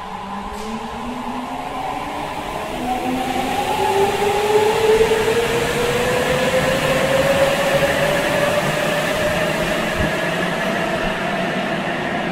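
Sapporo Subway Toho Line train, a rubber-tyred metro, pulling out of the station and accelerating past: its traction motors whine, rising in pitch over a steady rolling rumble. The sound grows louder over the first few seconds, then holds.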